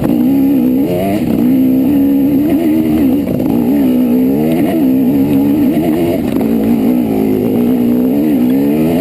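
Trail bike engine running hard under load, its pitch rising and falling continuously as the throttle is worked and gears change on the trail.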